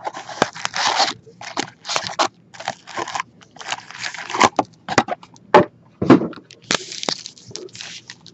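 Wrapped trading-card packs crinkling and scraping against each other and the cardboard box as the stack is lifted out and handled, in irregular rustling bursts with several sharp knocks.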